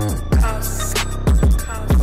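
Background music with a steady beat, deep bass and drum hits.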